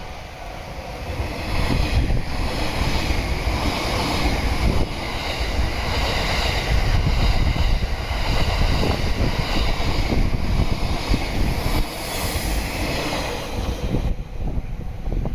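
JR East E001 series 'Shiki-shima' train running past, a steady rolling rumble that swells about a second and a half in and eases off near the end. Heavy wind buffets the microphone throughout.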